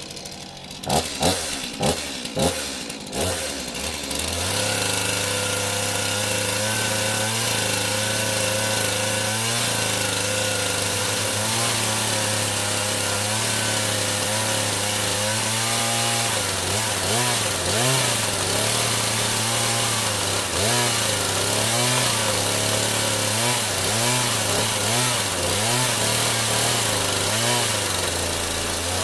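Chainsaw revved in a few short bursts, then running steadily at high speed. From about halfway through, its pitch rises and falls repeatedly as the chain bites into and cuts through a cardboard iPhone box.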